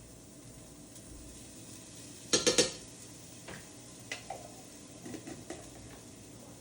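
Kitchen clatter: a loud metallic rattle of pots, pans or utensils being handled a little over two seconds in, followed by a few lighter knocks and clinks.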